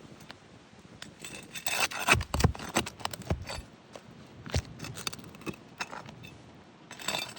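A metal tool scraping under worn, granule-bare asphalt shingles and clinking on roofing nails as they are pulled. A dense run of scraping and sharp clicks starts about a second in and is loudest around two seconds in, then single clicks follow sparsely.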